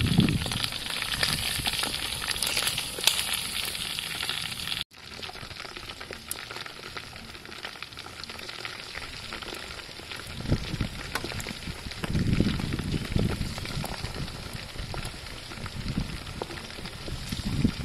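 Whole frogs deep-frying in hot oil in a metal wok, a steady sizzle with fine crackles. It drops to a quieter sizzle about five seconds in, with low rumbles now and then.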